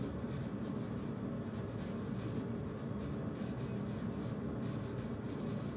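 Steady low hum and hiss of room tone, with no distinct events.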